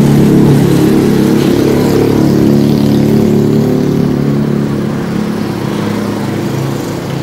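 A motor vehicle engine running steadily nearby, slowly fading toward the end.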